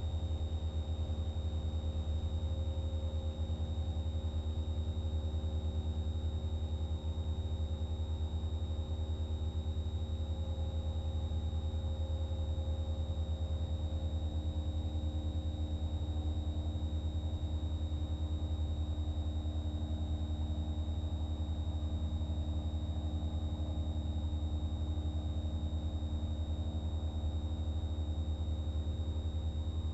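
Cessna 172 Skyhawk's piston engine droning steadily at climb power just after takeoff, heard inside the cockpit. A thin steady high tone sits over the engine drone.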